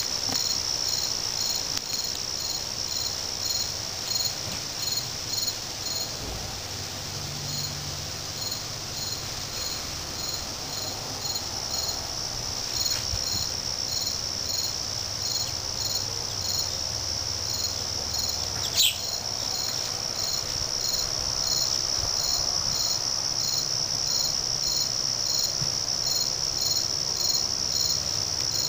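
Steady chorus of crickets: a continuous high trill with an even pulse. A single short rising chirp cuts in about two-thirds of the way through.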